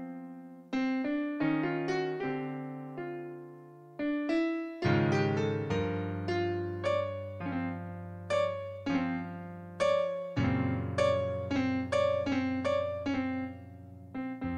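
Background piano music: a slow melody of single struck notes that ring and fade, with low bass notes joining about five seconds in.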